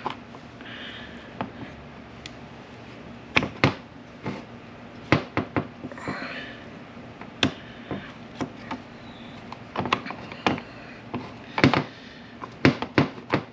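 Irregular sharp metallic clicks and taps of hand tools working on a manual transmission's shift tower housing while a rubber plug is pried back out, some coming in quick pairs, with a little scraping between them.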